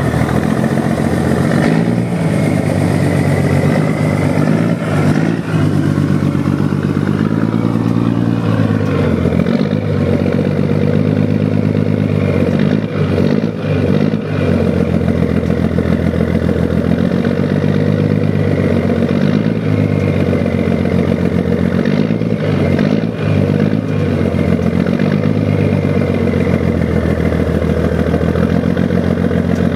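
1975 Scania truck's diesel engine, freshly fitted with new cylinder heads, running steadily after a start. Its note wavers for the first several seconds, then holds even.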